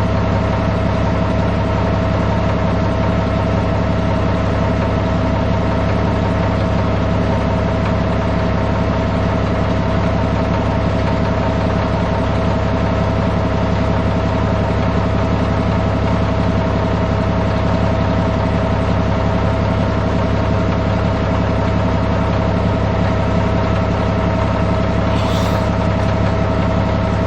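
Caterpillar D6C bulldozer's diesel engine running at a steady speed, with a constant whine over the engine note.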